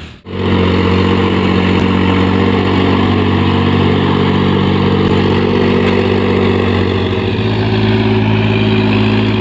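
Tractor engine running steadily as it puddles a flooded rice paddy; its pitch drops slightly near the end.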